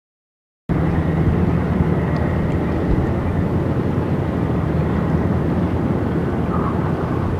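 Steady low drone of a passing coastal container ship's diesel engine, heard across open water; it starts abruptly after a moment of silence, just under a second in.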